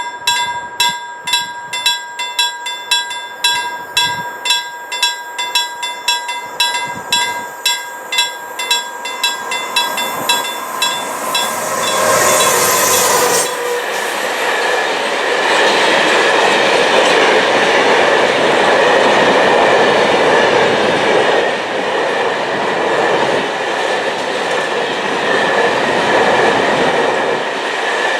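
A level crossing warning bell rings about twice a second. About 12 seconds in, a freight train reaches the crossing and drowns it out with a brief high screech. The train then runs on with a steady rumble of wheels on rail as its wagons pass.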